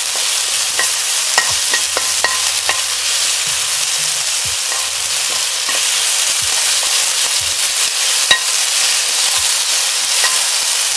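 Thinly sliced beef and garlic sizzling in hot oil in a wok as they are stir-fried with a wooden spatula, with occasional sharp clicks; the beef is browning.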